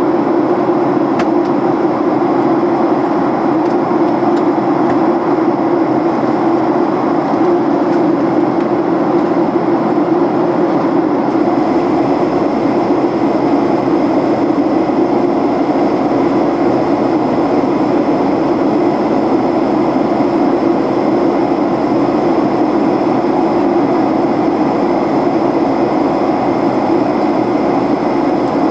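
Steady in-flight cabin noise of a Boeing 737 airliner on descent: engine hum and the rush of air along the fuselage. A deeper rumble joins about eleven seconds in.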